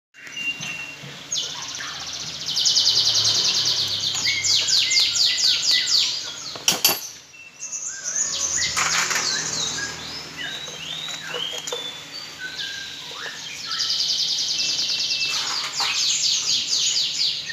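Songbirds chirping and singing, with fast trilled runs of high notes that come in two long spells, and a single sharp click about halfway through.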